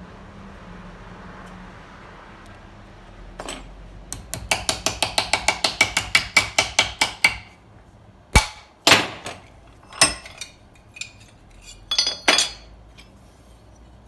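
Hammer blows on a strip of steel angle held in a vise, bending it into a curve. First a quick run of about five ringing strikes a second, then a handful of heavier single blows.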